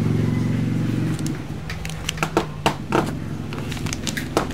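A plastic cookie cutter pressed into a lump of play dough and handled, giving several sharp clicks and taps in the second half. A low steady hum underneath fades out after about a second.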